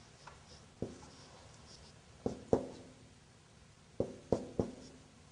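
Marker pen knocking and drawing against a whiteboard while writing: about six short, sharp taps at uneven spacing, some in quick pairs and threes.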